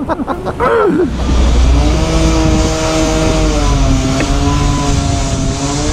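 Motorcycle engine running steadily at a standstill, a low rumble with a steady tone whose pitch sags slightly midway and then comes back up. The first second holds the end of someone talking before the engine sound takes over.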